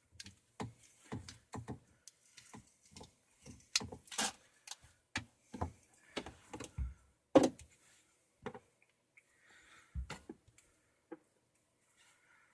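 Irregular clicks, taps and knocks of plastic pipe fittings and tools being handled, with a sharper knock about seven seconds in and a dull thud about ten seconds in.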